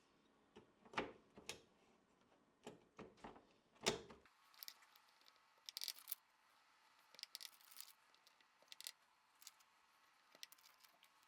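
Sparse, quiet clicks and taps from a custom QK80 MK2 mechanical keyboard fitted with Osume Matcha tactile switches, its keys pressed at an irregular pace. About four seconds in, the deeper part of the sound drops away and the clicks turn thinner.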